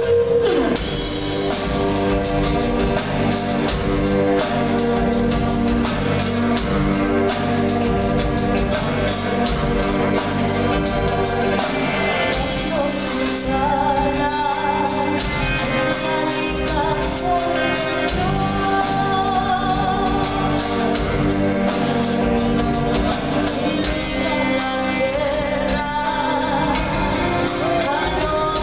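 Live rock band playing with sung vocals over guitars and drums, recorded from the audience at a concert.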